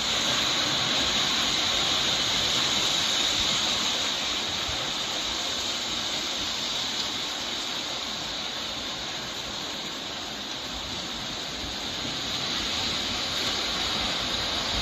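Steady rushing of floodwater, a dense even hiss that cuts in suddenly and eases slightly midway before swelling again.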